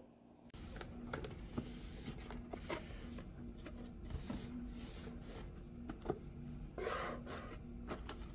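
Hands opening a cardboard CPU-cooler box: faint rubbing of cardboard and small taps and clicks, with a longer scrape near the end as the inner box slides out.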